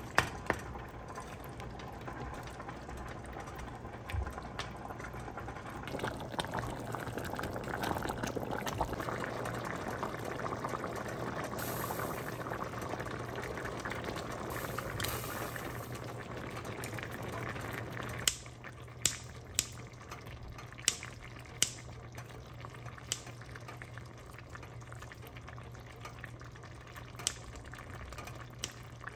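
Tomato sauce and pasta broth simmering and bubbling in an enamelled cast-iron pot, loudest in the middle and dropping off suddenly about two-thirds in. After that come several sharp clicks of a utensil knocking against the pot, over a faint steady low hum.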